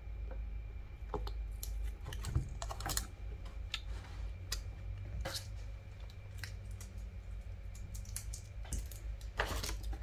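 Irregular light clicks and taps from objects being handled on a tabletop, over a low steady hum, with a quick cluster of taps near the end.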